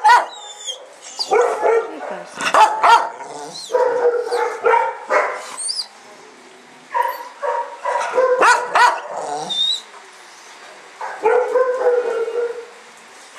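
Shelter dogs barking in repeated bursts of short barks, with brief pauses between the bursts.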